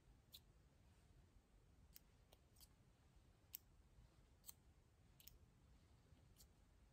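Near silence with about eight faint, irregular clicks: a metal pick working a small O-ring down into the barb of a pressure washer's downstream chemical injector.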